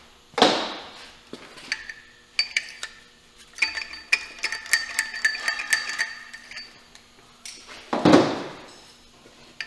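Metal tools clinking and ringing against a Honda K24 cylinder head as a spark plug socket on a long extension is worked into a plug well and turned by hand: scattered sharp clicks, with a ringing metallic tone through the middle. Two louder swishing noises come about half a second in and near the end.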